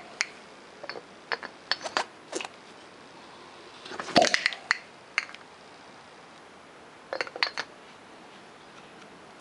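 Metal clinks and knocks of a piston with its rings being worked in and out of a steam engine cylinder casting's bore. The clinks come in scattered groups, loudest about four seconds in.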